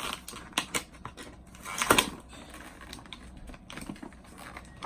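Irregular clicks and taps of a parcel and its plastic packaging being handled during unboxing, with a louder crackle about two seconds in.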